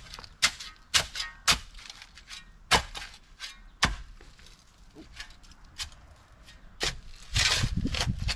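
Hand digging in soil: a digging tool strikes into the dirt several times, roughly every half second at first, then more sparsely. Near the end comes a longer scraping, rustling noise of soil being worked.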